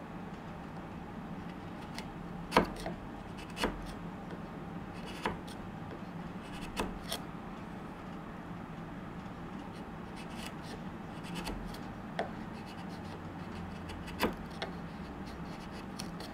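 A bench chisel paring waste from the end grain of a hand-cut mitred dovetail: scraping cuts with about eight sharp clicks at irregular intervals as chips break away, the loudest about two and a half seconds in, over a faint steady hum.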